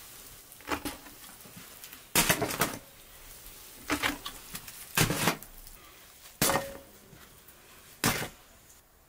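Dishes and utensils knocking and clinking, about six separate knocks spaced roughly a second or more apart, one leaving a short ringing tone.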